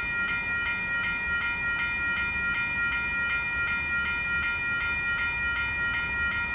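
Railroad crossing bell ringing steadily, about three strikes a second, over the low rolling noise of a freight train's covered hopper cars passing over the crossing.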